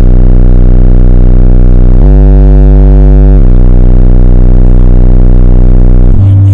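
A wall of eight DC Audio Level 3 15-inch car subwoofers on a 7.5 kW amplifier playing deep, sustained bass notes, the note changing every couple of seconds, so loud that the recording sits at its limit.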